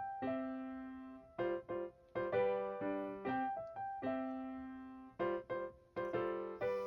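Gentle background piano music: single notes and chords struck one after another, each ringing and fading.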